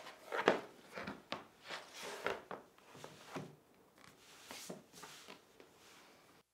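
Stone-pattern floor mat being laid on a wooden floor: a string of rustles, rubs and light slaps as the sheet is slid into place and pressed flat by hand, the loudest about half a second in.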